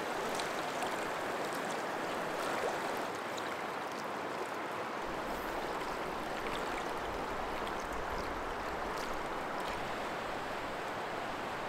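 River rapids rushing: a steady wash of fast-flowing water over rocks.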